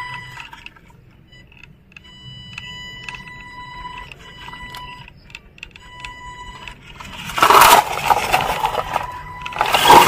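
An SG 1612 RC buggy's electric motor whines in short stop-start stretches as it strains to pull a brick-loaded trailer. Two loud rushing, scraping bursts follow, about seven and a half seconds in and again near the end.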